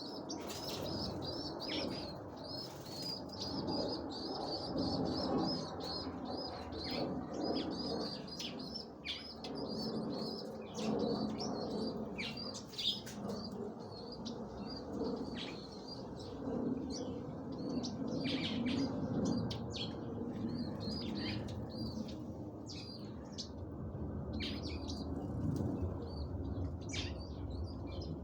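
Small birds chirping in a rapid run of short, repeated high calls, densest in the first half and sparser later, with wing flaps among them, over a steady low background rumble.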